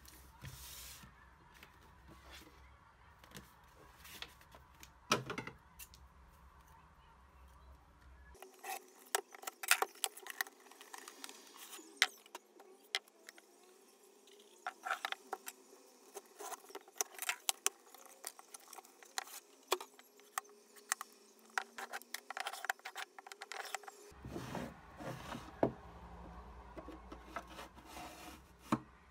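Cardboard cartons and packaging handled and opened by hand: rustling and scraping with many light knocks and clicks. Near the end, a wooden MDF storage drawer unit is handled.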